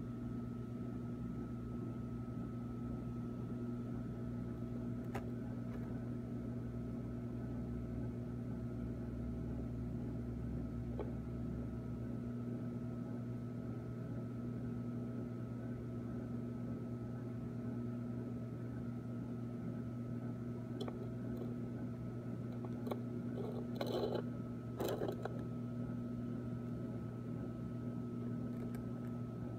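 Steady electrical hum of running reef-aquarium equipment, a low drone with a thin high whine over it. A deeper rumble under it drops away about twelve seconds in, and a few faint knocks and clicks come near the end.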